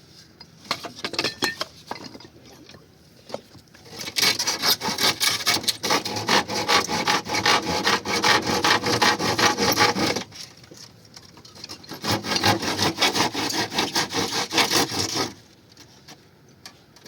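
Wood being sawn by hand in two long bouts of quick strokes, the first starting about four seconds in and the second stopping shortly before the end, with a few light knocks before them.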